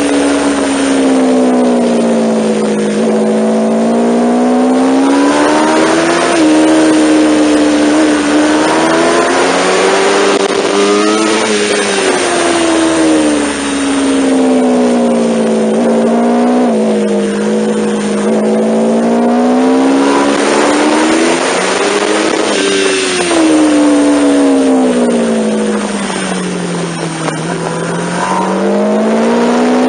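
Sport motorcycle engine at track speed, recorded onboard: the engine note climbs under acceleration and drops sharply at each upshift, then sinks in long falls off the throttle into corners, several times over. A steady rush of wind noise runs underneath.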